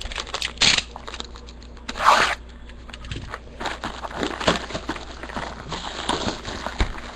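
A sealed box of trading cards being torn open by hand: a run of tearing, crinkling and scraping of wrapper and cardboard, with louder rips about half a second and two seconds in.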